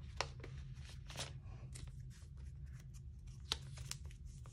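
Photocards being handled in the clear plastic sleeves of a binder page: faint rustling of the plastic with three short sharp crackles, the loudest a little after three seconds in, over a steady low hum.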